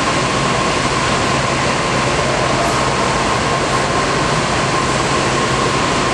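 Steady, unchanging machine noise with a constant high-pitched whine over a low hum.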